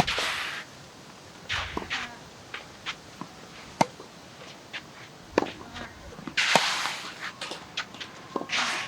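Tennis rally on a hard court: sharp cracks of racket strikes and ball bounces every second or two, with shoes scuffing and squeaking on the court between them.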